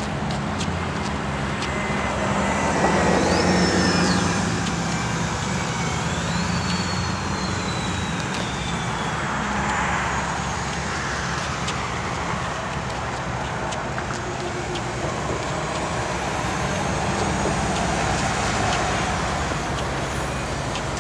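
Road traffic: a steady wash of cars passing one after another, swelling as vehicles go by about three seconds in, again around ten seconds and near the end, with a high whine that falls in pitch as one passes.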